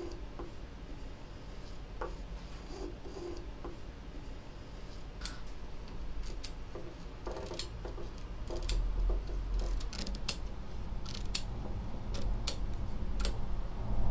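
A bone folder rubbing bookbinding gauze down over a book spine. About five seconds in, large scissors start snipping through the gauze, a sharp snip about every half second. A low rumble builds underneath near the end.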